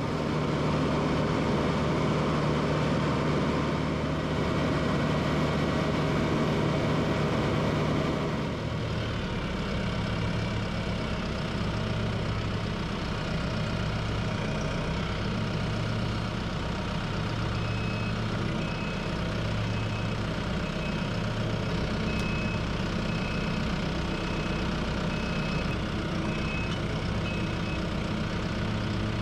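A TYM T654 compact tractor's diesel engine running, heard up close from the tractor. It works harder for the first eight seconds or so, then settles to a lower, steady run while the loader's hay spear picks up a round bale.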